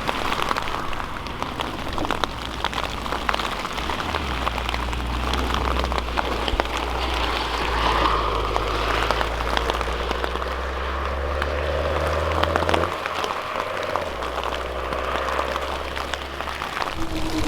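Rain pattering in dense fine clicks over a steady hiss, with the low drone of car engines underneath that swells about four seconds in and fades about thirteen seconds in.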